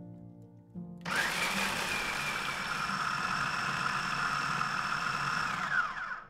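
Food processor motor starting about a second in and running steadily with a high whine, its blade chopping raw almonds, walnuts and dates; near the end it cuts off and the whine falls as the blade spins down.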